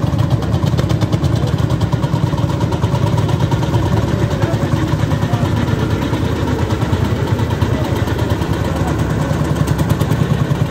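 Vintage tractor engine running with an even, rapid pulsing beat as the tractor drives slowly past.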